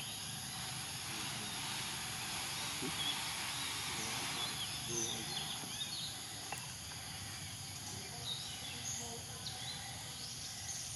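Steady outdoor background hiss, with faint short high chirps scattered through it.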